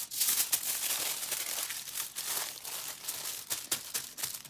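Aluminium foil being crinkled and folded by hand: a dense run of crackles.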